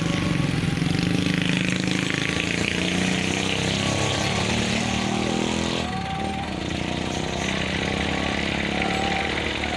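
A vehicle engine running steadily, with people's voices in the background.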